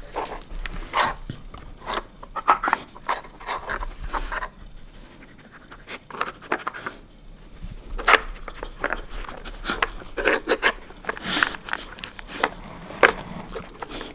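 A Samoyed panting while it noses and paws at a plastic sliding-block dog puzzle, the plastic pieces clacking and knocking irregularly as it works them to reach hidden treats.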